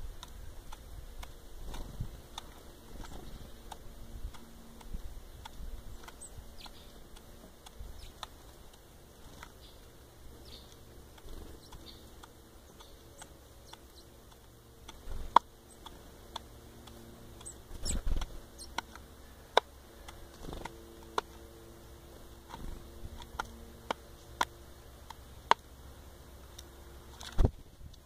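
Male common blackbird pecking rolled oat flakes from a plastic feeding bowl: irregular sharp taps and clicks of its beak in the flakes and on the bowl, more frequent and louder in the second half.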